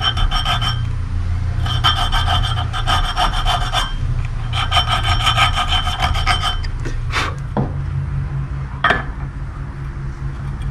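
A small hand file is drawn across the brass-brazed teeth of a cast-iron gearbox gear held in a vise. There are three bursts of rapid scraping strokes, with the gear ringing under the file. The filing stops about two-thirds of the way through, followed by a few light knocks and clinks as the gear is handled.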